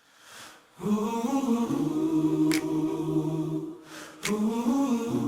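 Music intro: wordless choir voices holding long sustained chords in two phrases, with a soft swell of breathy noise just before the voices enter.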